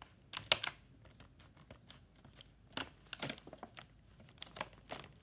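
Clear plastic outer wrapping of a packaged walkie-talkie set crinkling and crackling in irregular clicks as it is cut and pulled off, the loudest crackle about half a second in.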